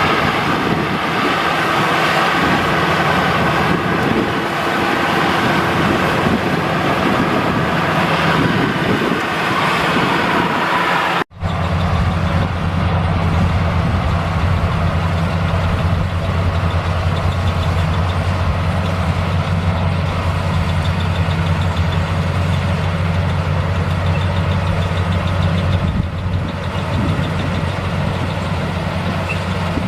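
Rice combine harvester engine running steadily. The sound breaks off for an instant about eleven seconds in, then continues as a lower, steady engine drone.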